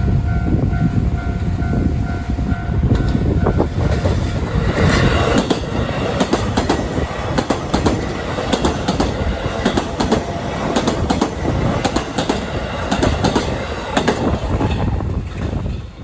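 A Yokohama Line electric train passing over the rail joints at a level crossing, its wheels clattering over the joints in rapid, uneven clicks over a steady rumble. A level-crossing warning bell rings through the first few seconds.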